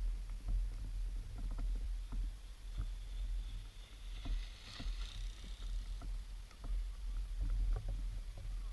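A mountain bike rides past through snow, the hiss of its tyres rising to a peak about five seconds in and fading. Underneath runs a steady low rumble with scattered small knocks.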